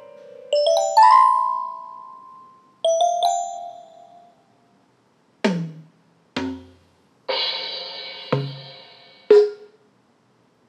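Virtual xylophone and drum kit in the Divoom app, tapped note by note: a quick run of ringing xylophone notes, then two more a couple of seconds later. Then separate drum hits follow: two toms that drop in pitch, a long cymbal crash, another tom and a final sharp hit.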